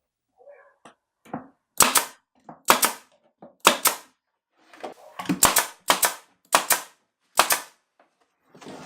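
Nails being driven into the wooden dust box around a miter saw: about seven sharp shots, roughly a second apart, with several coming close together past the middle.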